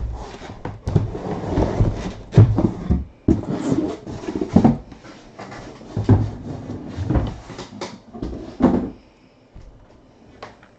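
Boxes being slid out of a cardboard shipping case and set down: a run of scrapes, rustles and knocks that dies away about nine seconds in.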